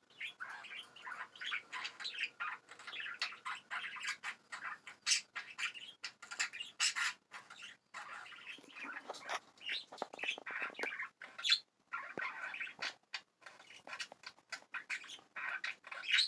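Pet budgerigars chattering: a fast, continuous run of chirps, warbles and squawks mixed with sharp clicks, ending abruptly.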